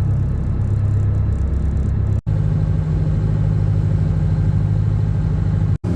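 Charter fishing boat's engine running steadily under way, a loud low drone with rushing wind and water noise, broken twice by a split-second gap.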